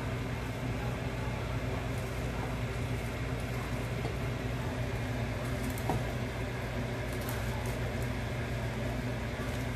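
Steady low mechanical hum with a faint hiss, like a kitchen appliance running beside a gas stove. A few soft light ticks come from about halfway on, as handfuls of chopped vegetables are dropped into a stainless steel pot.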